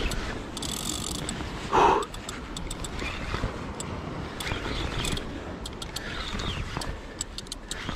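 Daiwa Saltiga 8000 spinning reel being cranked, ticking mechanically as it winds in line against a hooked false albacore, over wind and sea noise. A short, loud burst about two seconds in.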